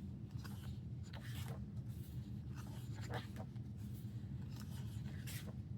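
Pages of an album photo book being handled and turned: a few short, scattered paper rustles and slides.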